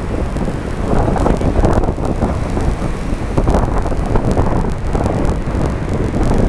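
Wind buffeting the camera microphone over the steady road and engine noise of a moving car, the level rising and falling in gusts.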